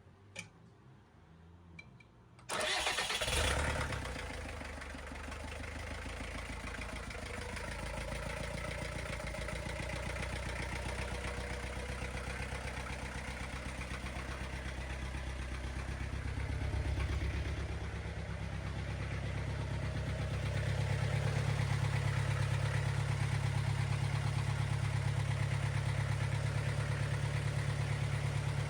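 Bobcat 7753 skid steer's diesel engine starting for the first time after its rebuild: a few faint clicks, then it catches about two and a half seconds in and settles into a steady idle. Its sound grows louder and fuller about twenty seconds in.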